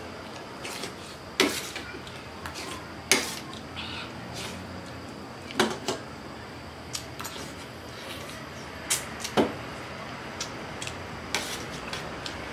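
Steel spoon clinking and scraping against a stainless steel plate and bowl while eating rice: scattered, irregular sharp clinks, a few louder ones among many light taps.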